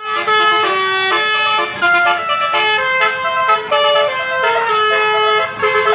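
Bus's basuri telolet musical air horn playing a tune: a rapid string of held horn notes stepping up and down in pitch, with no gaps.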